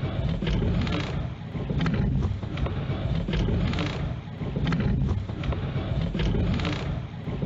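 Recording aboard a rowing shell underway: wind rushing over the microphone with regular knocks of the rowing stroke, fading in at the start and out near the end.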